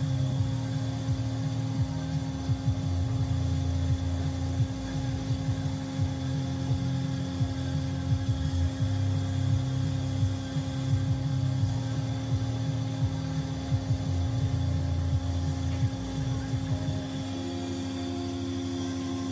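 Automatic transmission valve-body test bench running: a steady machine hum with a low rumble that shifts in level every second or two as the bench pumps oil through the valve body. Near the end the rumble drops and a higher tone comes in.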